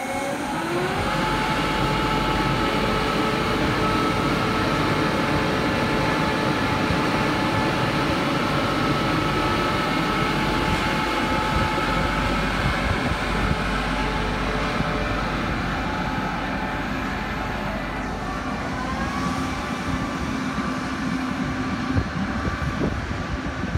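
Electric locomotive of a push-pull Tze-Chiang express moving slowly past over the rumble of its wheels on the rails. An electric whine rises in the first second and then holds steady, and a second rising whine comes in near the end as the coaches roll by.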